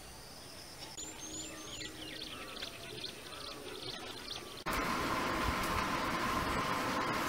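Birds chirping and giving short rising whistle calls in open countryside. A little over halfway through, this cuts suddenly to a louder, steady outdoor rushing noise with a faint even hum.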